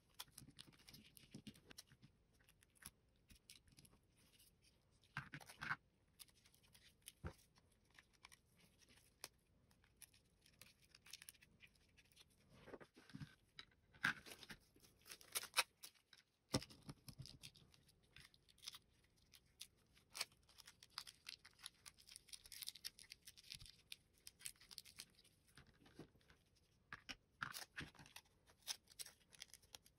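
Faint masking tape work on small plastic mouse parts: tape being torn and pressed on, heard as scattered short crackles and clicks, a little louder around the middle.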